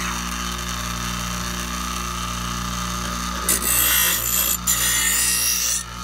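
Ryobi 6-inch bench grinder motor running steadily. About three and a half seconds in, the edge of a steel lawnmower blade is pressed against the spinning wheel for grinding passes that sharpen it, with a couple of brief breaks as the blade is lifted and set back.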